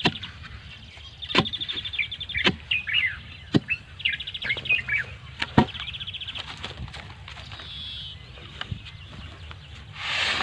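Small birds singing with repeated rapid trills and chirps, over several sharp, separate knocks during the first half. Near the end a short gravelly rush as gravel is tipped from a shovel into the post hole.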